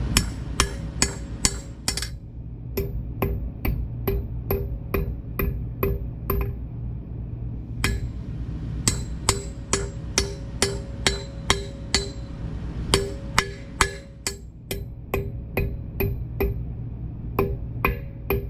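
Hammer striking metal on an I-beam anvil in quick runs of blows, about two to three a second, with brief pauses between runs. Each blow gives only a short ring: the beam's gong-like ringing has been damped.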